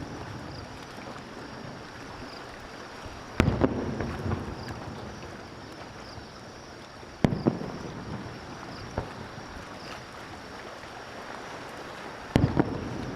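Aerial firework shells bursting: three loud booms about four to five seconds apart, each followed by a few smaller pops and a rolling echo, over a steady wind-like rush between them.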